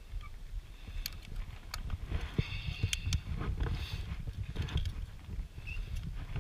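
Metal carabiners and a cable pulley on a climbing harness clicking and clanking against a steel safety cable as they are handled and clipped. There are several sharp clicks, spaced irregularly, over a low rumble.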